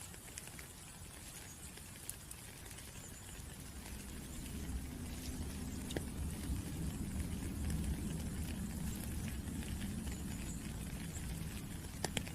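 Rain falling, with scattered sharp drop ticks over a steady hiss; a low rumble underneath grows louder about four seconds in.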